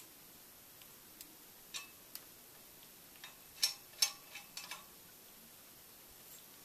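Light clicks and taps of hard hookah parts being handled while unpacking: a few scattered clicks, the loudest two close together about four seconds in, then a short run of smaller ones.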